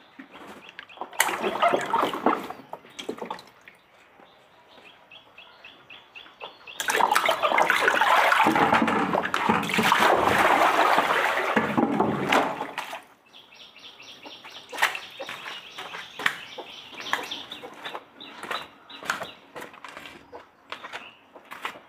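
Water splashing and pouring in two loud spells, about a second in and from about seven to thirteen seconds in. Rapid high ticking in between and afterwards.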